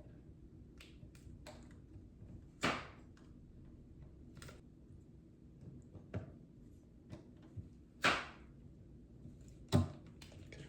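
Clicks and taps of computer parts being handled while a CPU is fitted into a motherboard socket: four sharper knocks stand out among fainter ticks.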